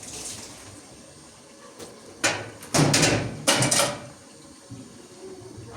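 A run of loud knocks and clatter lasting about two seconds, starting about two seconds in.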